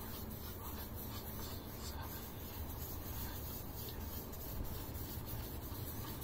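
Lead-paint test swab rubbed back and forth over a scuffed spot on a painted steel frame rail, a steady faint scratchy rubbing.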